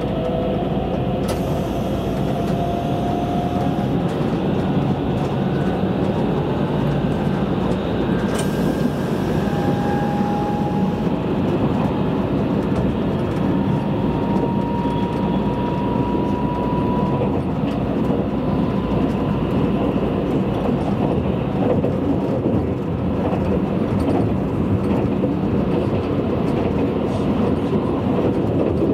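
Tobu Spacia limited express train running at speed, heard from inside the passenger car: a steady rumble of wheels on rail. In the first half a faint whine rises slightly in pitch a few times.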